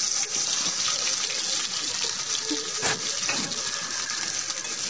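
Cut okra sizzling in hot oil in a kadhai, a steady hiss, with one sharp knock of the spatula against the pan about three seconds in.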